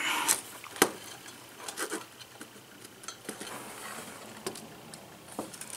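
Soft, scattered clicks and taps as a soldering iron tip and rosin-core solder wire are worked against a wire splice, with one sharper click about a second in.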